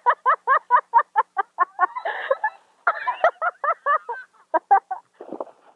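A high voice making rapid, rhythmic repeated calls, about five a second, in two runs with a short break about two seconds in, then trailing off into softer scattered sounds.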